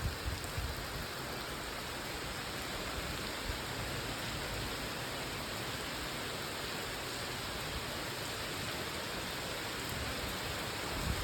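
Steady rain falling, an even hiss of drops with no let-up, and a few low thumps in the first second.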